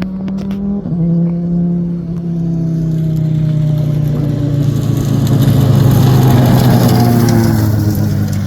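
Race car coming off the throttle after the finish of a drag run, with a few sharp exhaust pops in the first second. Its engine note then falls steadily in pitch and grows louder as it comes closer and goes past.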